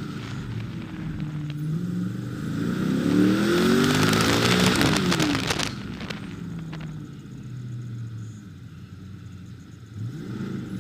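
1968 Corvette's V8 engine accelerating hard, its revs climbing steeply to a peak about five seconds in with loud wind and road noise, then cutting back as the throttle is lifted. It runs low and steady while coasting, with a short rise in revs near the end.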